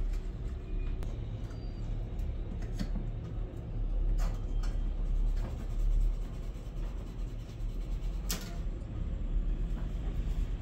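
Steady low rumble of room noise, with a few sharp clicks, the clearest about four seconds in and just past eight seconds.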